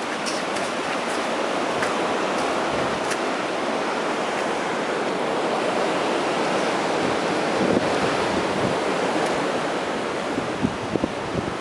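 Floodwater rushing steadily, a continuous even wash of water noise.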